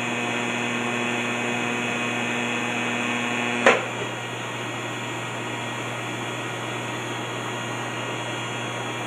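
TIG welding arc buzzing steadily while filler rod is added, then stopping about four seconds in with a sharp click. A quieter steady hum from the welding machine carries on after it.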